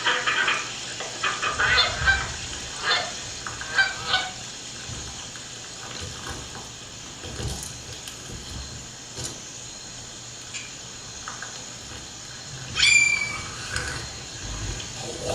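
Ducks calling in a burst of short calls over the first few seconds, then a steady background hiss, with one sharp high call near the end.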